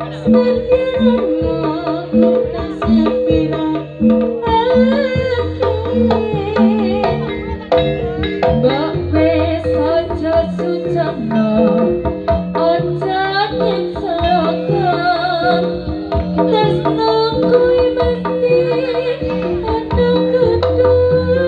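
Live jaranan (kuda lumping) gamelan music: hand drums keep a steady driving beat under repeating gong-chime and metallophone notes, with a wavering high melody over the top and deep gong tones sounding now and then.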